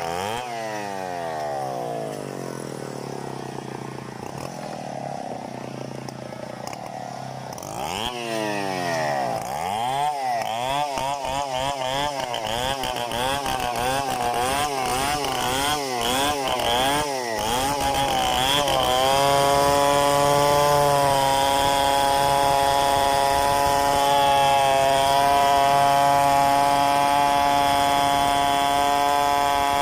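Large two-stroke chainsaw: its revs fall away at the start, then about ten seconds of quick throttle blips rising and falling, then held steady at high revs from about two-thirds in, as when working through a freehand milling cut.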